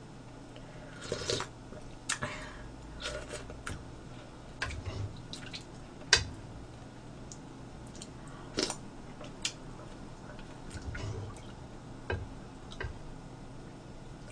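Close-up eating sounds: slurps and chewing of a saucy tofu and squid stir-fry, with scattered light clicks of a metal spoon.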